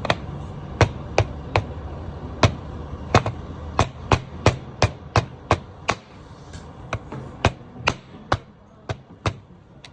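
Repeated hammer blows, about twenty sharp strikes at roughly two to three a second, while working on a differential's pinion seal.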